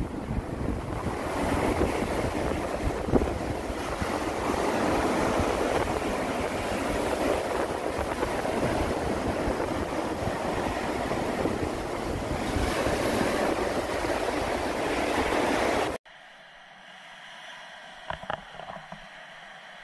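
Sea surf washing onto a sandy beach, with wind buffeting the microphone. About 16 seconds in it cuts off sharply to a much quieter background with a few faint clicks.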